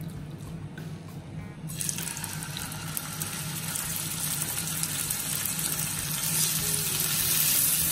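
Raw ribeye steaks sizzling in very hot olive oil in a frying pan. The sizzle starts suddenly about two seconds in as the first steak goes in, and gets louder when the second steak is added near the end.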